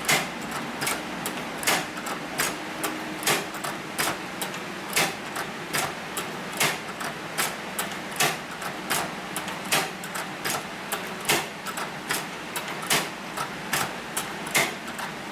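Hand-crank leather sewing machine stitching slowly: a sharp clack a little more than once a second, with lighter ticks between, repeating evenly.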